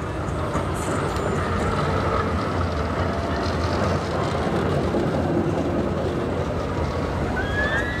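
TFS tram running past close by: a steady rumble of wheels on rails and running gear that holds level as the cars go by.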